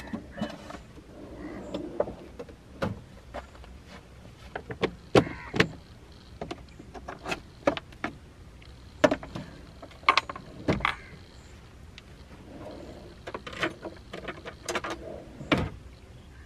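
Knocks, clicks and clatter of a van's built-in pull-out kitchen unit being packed away: the drawer tray slid in and shut, and a plastic sink basin handled and set in place. The loudest knocks come about five, nine, ten and fifteen seconds in, one with a brief metallic ring.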